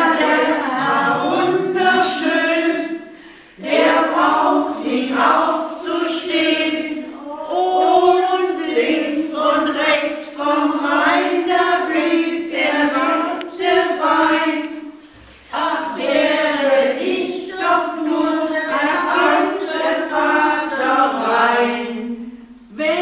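A small group of older people singing a German song together without accompaniment, mostly women's voices, pausing briefly twice between lines.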